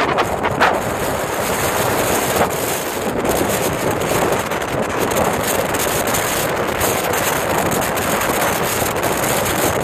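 Wind buffeting the microphone as a steady, loud rush of noise with a brief stronger gust about half a second in, mixed with the surf of a rough sea breaking on rocks.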